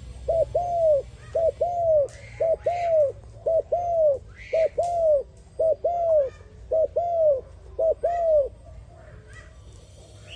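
A dove cooing: a quick short note followed by a longer arched coo, the pair repeated about once a second, eight times, stopping about eight and a half seconds in. Faint higher chirps sound in the background.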